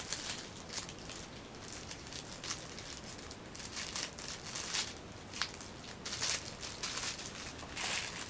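Packaging being handled, with irregular crinkling and rustling, the loudest bursts near the middle and the end.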